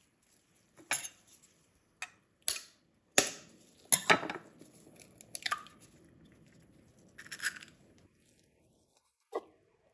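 Raw egg tapped sharply several times against the rim of a glass mixing bowl, its shell cracking with a glassy clink on each tap, then a brief crackle as the shell is pulled apart over the bowl.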